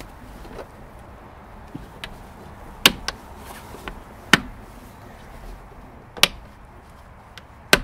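Plastic airbox lid being pressed down onto its housing and its metal spring clips snapped shut: a handful of sharp clicks a second or two apart, two of them close together about three seconds in.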